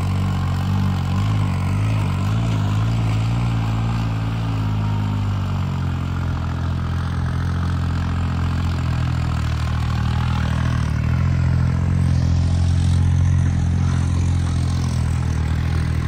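Two modified tractors' diesel engines, of 50 hp and 55 hp, running steadily side by side. For the first few seconds their sound throbs slowly in and out as the two run at nearly the same speed.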